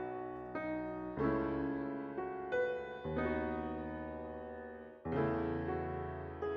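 Soft background piano music, slow chords and single notes.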